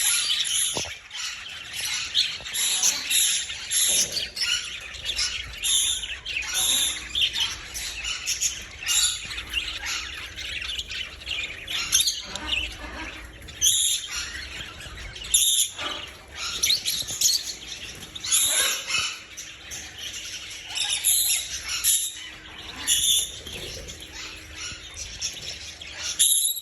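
Many caged birds chirping and squawking at once, a dense, continual chatter of short high calls.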